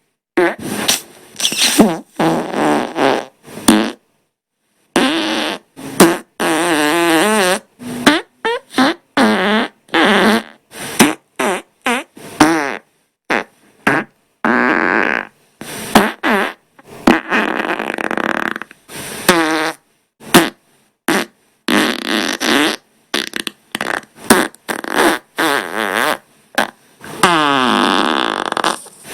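A fast run of farts, edited back to back with abrupt cuts between them: some short sputters, some long pitched blasts whose pitch wavers, one near the end sliding downward.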